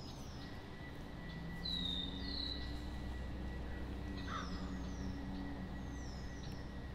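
Birds calling in the background: a series of short, high chirps that slide downward in pitch, repeated every second or so, over a faint steady high whine and a low hum.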